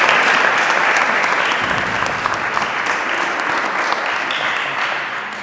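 Audience applauding, the clapping slowly thinning and dying away near the end.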